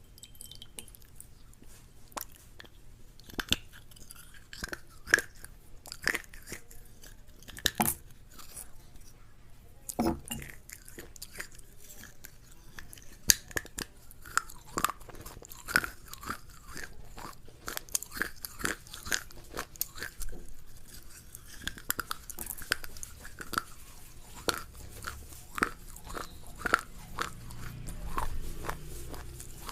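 A person chewing and biting crunchy food close to the microphone: irregular sharp crunches and crackles, several a second.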